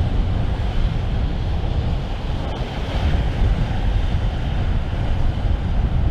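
Strong wind buffeting the microphone in a gale, with the sea washing beneath it.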